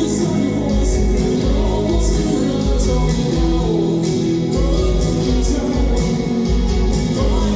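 Live band playing with a singer: vocals over guitar, with drums keeping a steady beat of about two kick-drum hits a second under splashing cymbals.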